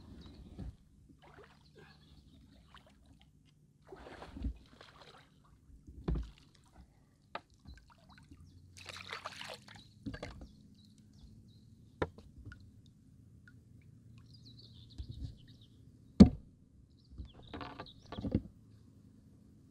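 Canoe paddle strokes: irregular splashes and water dripping off the blade every couple of seconds, with a few sharp knocks in between, the loudest about three-quarters of the way through.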